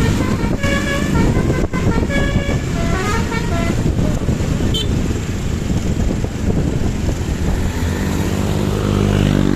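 Basuri telolet bus horn playing a quick multi-note melody for the first few seconds, then stopping, leaving the bus's engine rumbling, with a low steady drone near the end.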